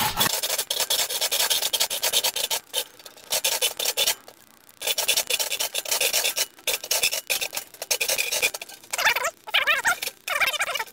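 Hand hacksaw cutting through a clamped metal plate, rasping in quick back-and-forth strokes, with a short break about four seconds in.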